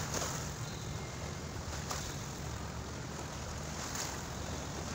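Small waves of seawater washing over a flooded waterfront road, with steady wind noise on the microphone.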